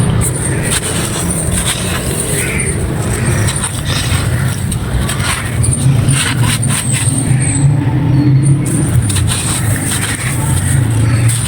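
Dry clay crumbling by hand: irregular, crisp crackles and crunches over a steady low hum.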